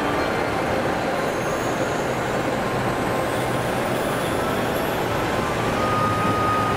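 Large diesel truck engine idling steadily, a constant low rumble.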